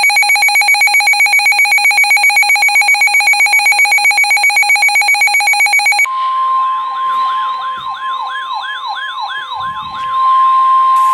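Emergency alert tones between two weather warnings. First comes a loud, rapidly pulsing electronic alarm tone for about six seconds. It then switches to a steady tone with a siren wailing up and down over it.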